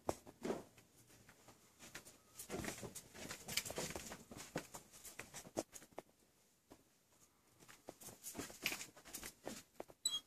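Footsteps on carpet and handling noise from a handheld phone, an irregular run of soft knocks and rustles, busiest about two to four seconds in and again near eight to nine seconds.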